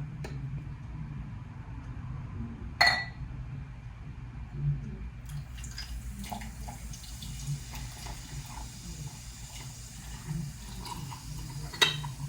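Something being poured into a bowl or container, a soft rush starting about five seconds in, with a sharp clink near three seconds and another near the end.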